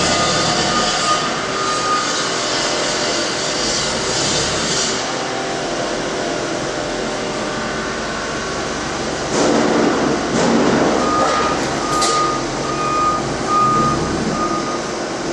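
Forklift backup alarm beeping steadily, about one and a half beeps a second, over the hum of a busy warehouse dock; it stops after the first couple of seconds and starts again near the end. Around the middle a louder rumbling clatter lasts a second or so.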